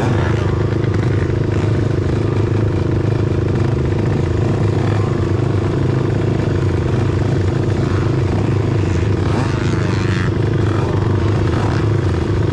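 Kawasaki KFX90 youth quad's engine idling steadily at the starting gate, with no revving.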